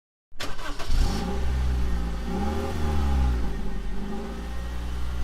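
Car engine starting about a third of a second in, then running and being revved up and down a few times.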